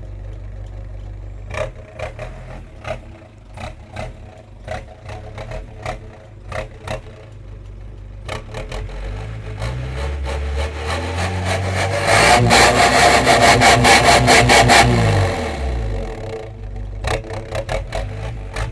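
Ford Transit engine idling with sharp ticks, then revved up over several seconds. At the peak a loud wind-like rush comes from the exhaust before the revs drop back to idle. The uploader calls it a strange wind sound from the exhaust.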